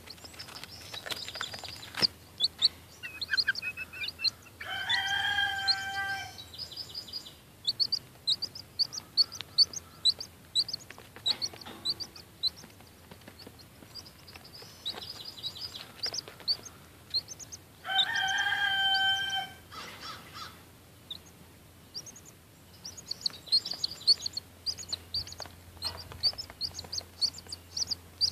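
Chicks peeping in rapid, high, short chirps, with a grown chicken giving a louder drawn-out call twice, once about five seconds in and again after about eighteen seconds.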